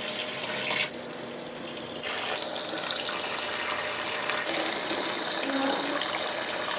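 Water running in a thin stream into a large aluminium pot of beef tendon, a steady splashing rush that turns a little brighter about four and a half seconds in.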